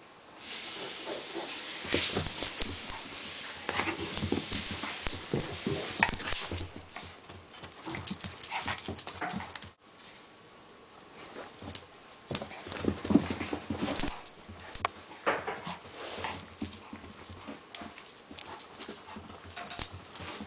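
A Papillon puppy scrambling and tussling on carpet in a game of chase and tug-of-war with a toy: irregular scuffling and knocks, quieter for a couple of seconds midway.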